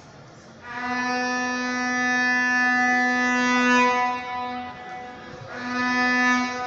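A horn blown from the stands in a long, steady note of about three and a half seconds, a brief toot, then a second note of about a second near the end.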